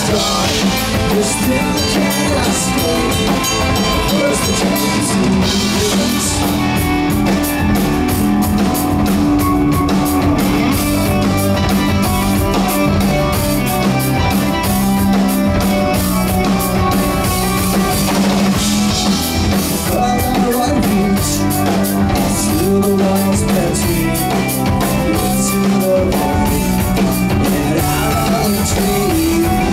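Live rock band playing with drum kit, electric guitar, bass and keyboards: a loud, steady, full-band passage with constant cymbals over held chords.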